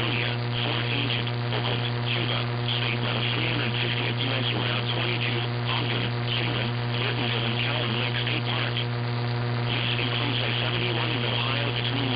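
Loud steady electrical hum with static hiss over a broadcast capture, with faint music or voices underneath.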